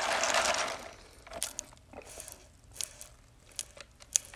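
Close-up eating-show mouth and handling sounds: a short rush of rustling noise at the start, then scattered small clicks, ending in a sip through a drinking straw from a paper soda cup.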